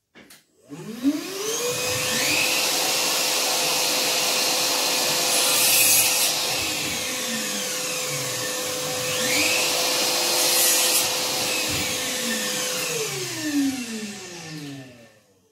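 Einhell wet/dry shop vacuum switched on, its motor whining up to speed and running steadily with a loud hiss of suction that surges briefly twice, then switched off and winding down near the end.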